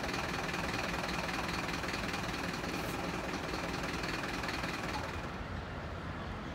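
Fire engines' diesel engines running steadily at idle, a low even rumble under a hiss; about five seconds in, the high hiss drops away.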